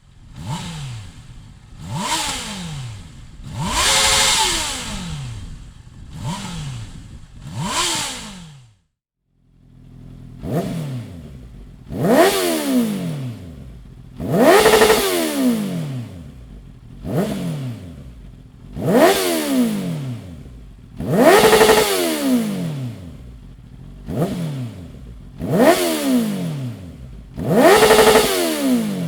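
Honda CBR 650R inline-four engine through a Dominator full exhaust system, revved in a string of quick throttle blips. Each blip climbs sharply in pitch and falls back toward idle. There is a brief silent break about nine seconds in, after which the blips come faster and louder.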